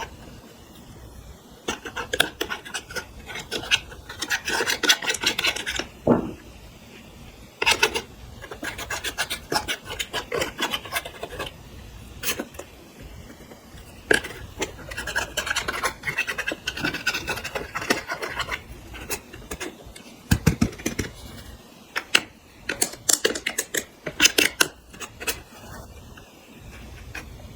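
Clear slime being worked by hand with makeup and glitter: stretches of sticky crackling, clicking and rasping, broken by short pauses and single sharp clicks.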